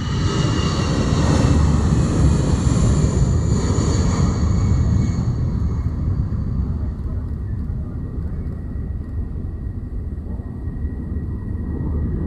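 Lockheed Martin C-130J-30 Hercules turboprops at take-off power: a loud, steady low rumble with high whining tones that slide slowly down in pitch as the aircraft goes past. The whine fades about five or six seconds in, leaving the rumble.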